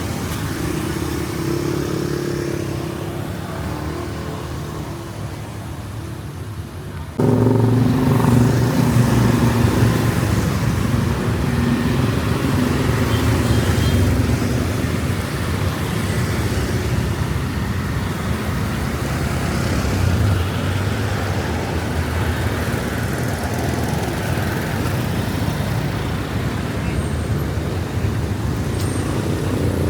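Busy street traffic, with motorbike and car engines running past. It jumps suddenly louder about seven seconds in.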